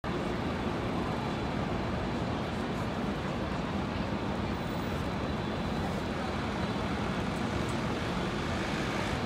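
Steady city traffic noise at a busy Manhattan intersection: a constant low wash of vehicles with no single sound standing out.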